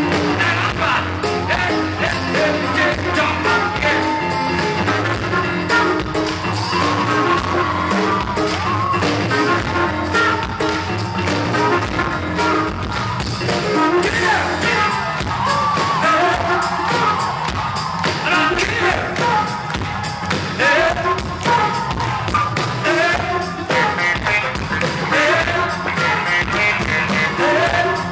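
Upbeat rock-and-roll song with singing, playing without a break.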